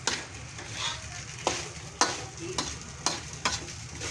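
Fried rice being stir-fried in a pan: a steady sizzle with a spatula scraping and knocking against the pan about six times.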